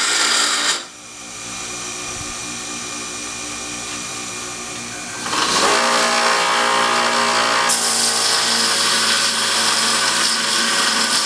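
Power grinder running, with a steel punch blank pressed against it to square off its fish-lipped end. There is loud grinding for about the first second, then a few seconds of steadier motor hum, and loud grinding again from about halfway that gets brighter near the end.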